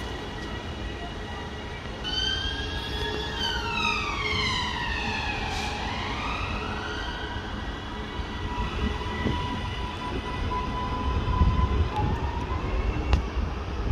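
Northern class 331 electric multiple unit pulling into the platform as it slows: its electric drive whines in several tones that slide down in pitch and then rise again partway through, over the steady hum and low rumble of the train.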